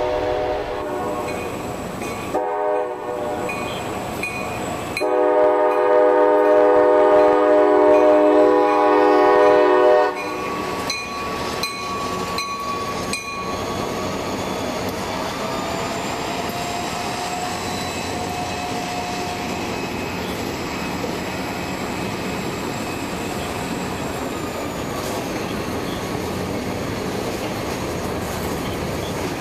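CSX freight train led by EMD GP38 diesel locomotives sounding its horn for a grade crossing, with a long loud blast from about five to ten seconds in. The freight cars then roll past steadily, with wheel clatter and a faint wheel squeal.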